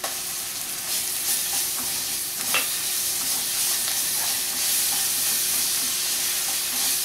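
Ginger-garlic paste dropped into hot oil with sautéed onions in a nonstick kadai: the frying sizzle jumps up at the start and hisses on loudly as a spatula stirs and scrapes the pan.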